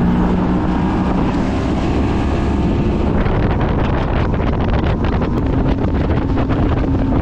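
Boat motor running under way, with heavy wind buffeting the microphone. The engine's steady tone is plain at first and is buried under the wind rush from about three seconds in.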